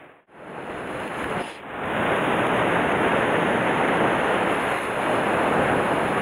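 Sea surf washing and breaking against shore rocks, a steady rushing wash. It drops out briefly just after the start and again about a second and a half in, then runs on evenly.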